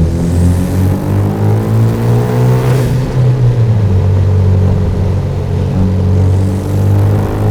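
Turbocharged Hyundai Genesis Coupe with a free-flow aftermarket exhaust, accelerating in gear: the engine note climbs for about three seconds. At the gear change there is a brief whoosh from the turbo venting, then a steady, lower exhaust drone as it cruises in the next gear.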